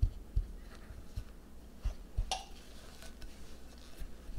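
Kitchen utensils and bowls being handled: several dull knocks, and one sharp ringing clink about two seconds in.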